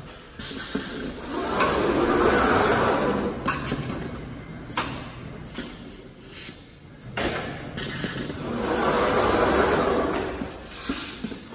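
Jug palletizer's overhead gantry gripper cycling: its drives make two long whirring swells that rise and fall as the gripper travels. Between them are several sharp clicks and clunks as it grabs and sets down a plastic jug.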